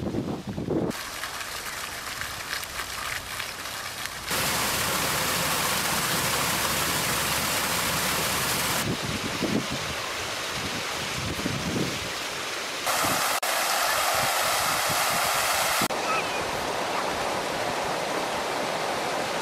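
Steady rushing outdoor noise that jumps abruptly in level and character several times, with faint voices now and then.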